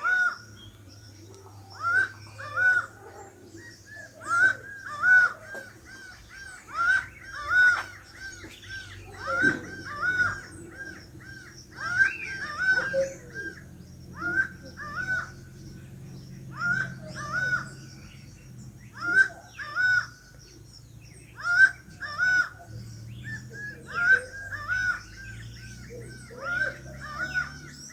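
Laughing falcons (acauã) calling: short arched notes repeated over and over in rhythmic bouts, with brief pauses between bouts. This is their mating-season calling.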